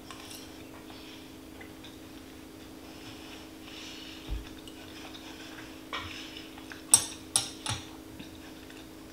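Soft chewing over a steady low hum, then a few sharp clicks and clinks about seven seconds in as a metal fork is set down on a stone countertop and chopsticks are picked up.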